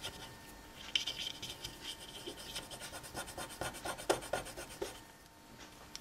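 Alcohol-dampened cotton swab scrubbing the contact pads of a microwave control circuit board: a run of rapid, faint scratching strokes starting about a second in and dying away near the end.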